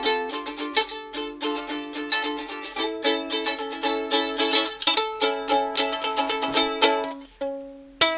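Ukulele being strummed, playing chords in a steady rhythm of several strokes a second. Near the end one chord is left ringing before a sharp new strum.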